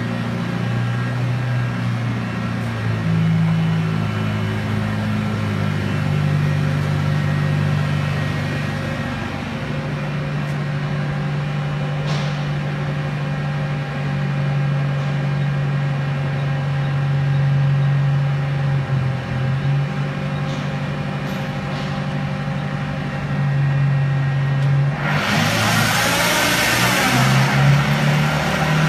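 Okuma 762S Big Bore CNC lathe running, a steady machine hum whose low tone shifts in pitch in steps, with a fainter steady whine above it. About 25 seconds in, a loud hiss starts and lasts about three seconds.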